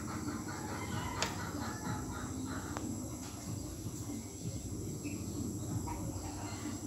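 Outdoor rural background ambience: a rapid, rhythmic chirping through the first few seconds, over a steady low hum, with a couple of faint clicks.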